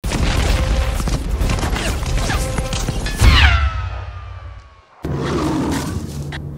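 Intro sound effects: a low explosion rumble under a rapid clatter of sharp cracks like gunshots, then a loud hit about three seconds in with a falling swoop that fades out. About five seconds in, low dark trailer music begins.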